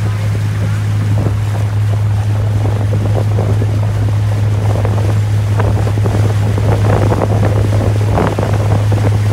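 Tour boat's engine running with a steady low drone, under wind buffeting the microphone and the rush of water churned up by the boat.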